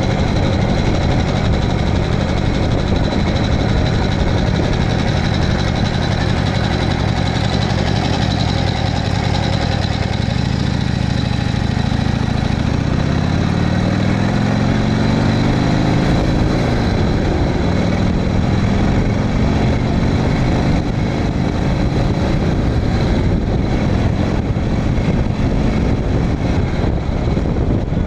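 1985 Harley-Davidson Sportster 1000 Ironhead's V-twin engine running under way at speed, under a steady rush of wind and road noise. Around the middle the engine note climbs for several seconds, drops sharply at a gear change, then climbs again.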